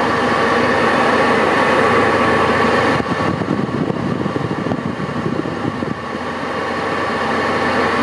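Steady rush of air-conditioning fans: the cabin blower pushing chilled air out of the dashboard vents, over a low hum from the electric A/C system. It dips about three seconds in and builds back up near the end.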